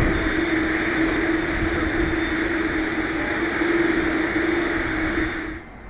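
Jet airliner noise on the apron: a steady whine held on one pitch over a rushing hiss, cutting off abruptly near the end.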